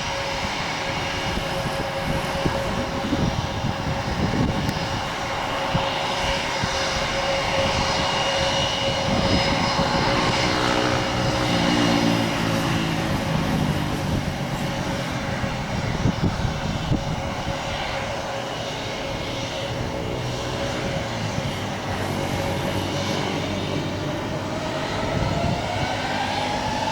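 Jet airliner engines running with a steady roar and whine. A second whine starts rising in pitch a couple of seconds before the end.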